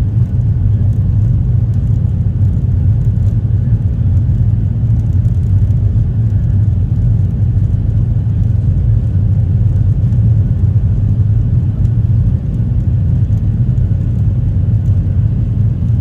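Steady low rumble inside the cabin of a Boeing 737 rolling on the ground, its engines running at an even setting with no spool-up.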